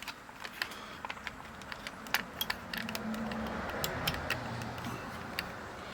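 Small sharp plastic clicks and ticks, irregularly spaced, from handling a handheld digital multimeter and working its controls. A faint steady low hum comes in about halfway through.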